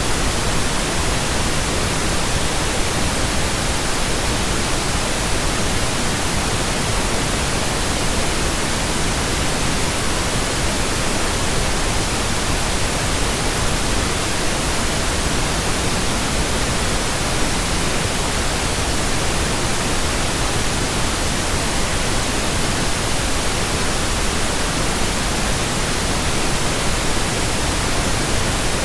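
Synthetic pink noise: a loud, steady, even hiss that never changes.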